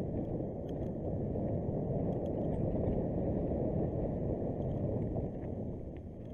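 Rushing wind on the microphone mixed with the rumble of mountain-bike tyres on a dirt trail, with a few light rattling clicks. The noise eases slightly near the end.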